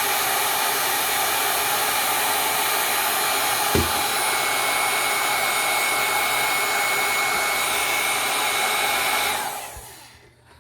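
Handheld hot-air blower running steadily, a rushing of air with a thin whine over it, warming the adhesive of a mouse's glide pads to soften it. A short knock a little under four seconds in; near the end the blower is switched off and winds down.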